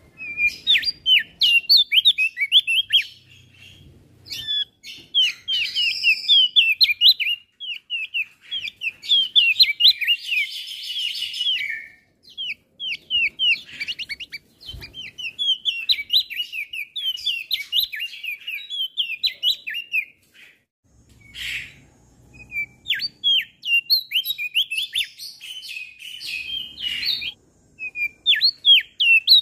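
Male opior jambul singing a fast, chattering song of quick chirps in long runs, with a harsh buzzy stretch about ten seconds in and a couple of brief pauses.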